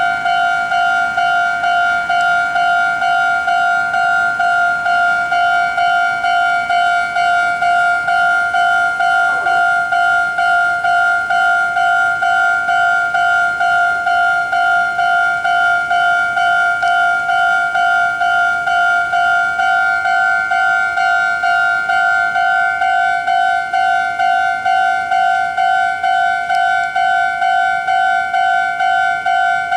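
Japanese railway level crossing's electronic warning bell ringing steadily at about two strikes a second, signalling an approaching train.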